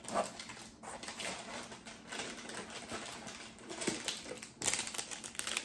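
Cardboard box flaps and plastic packaging rustling and crinkling as items are lifted out of a shipping box, with a louder crinkle about four and a half seconds in.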